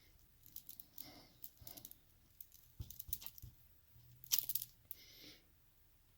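Small metal lock parts and tools handled on a bench: faint scattered clicks, scrapes and rattles, with a sharper metallic clatter about four seconds in.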